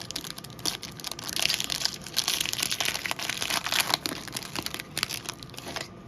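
Crinkling and rustling as a pack of Topps Garbage Pail Kids Chrome trading cards and its wrapper are handled, a dense crackle strongest through the middle few seconds.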